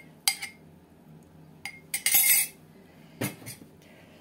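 Kitchenware being handled on a counter: a few sharp clinks of glass and cutlery, with a short louder clatter about two seconds in.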